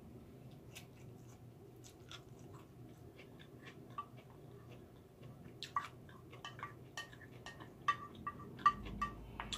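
Faint mouth sounds of someone chewing a rice bowl, with a wooden spoon clicking and scraping against a glass dish; the clicks come more often and more sharply in the second half.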